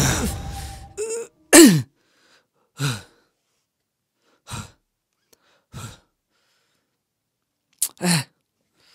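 A man's heavy sighs and breaths: about seven short breath sounds a second or more apart, with near silence between. The loudest is a voiced sigh falling in pitch about one and a half seconds in.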